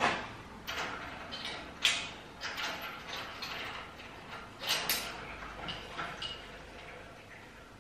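Irregular metallic clinks and rattles as a hanging scrap-metal sculpture is handled on its chain: chain links and the steel feathers knocking together. The loudest clanks come at the start, about two seconds in and around five seconds in.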